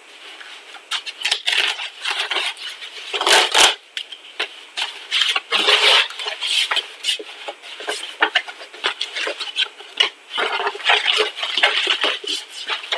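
A cardboard parcel being opened and its packaging handled: irregular crinkling, rustling and scraping, with a louder knock about three and a half seconds in.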